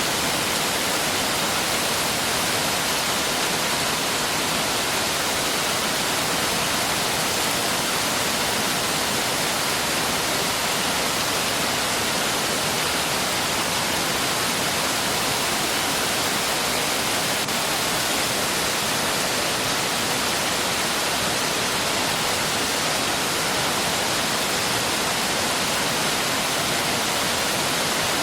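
Mountain valley stream rushing steadily over rocks: an even, unbroken wash of flowing water.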